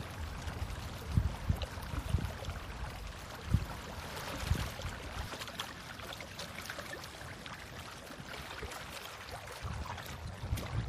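Hands digging and scooping wet mud and seaweed, giving a steady watery, squelching hiss with a few low thumps in the first half.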